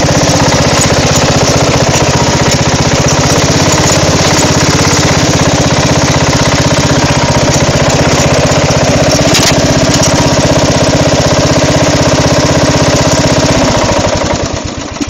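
Craftsman riding lawn mower engine running steadily and loud. About fourteen seconds in, it slows and dies away to a stop.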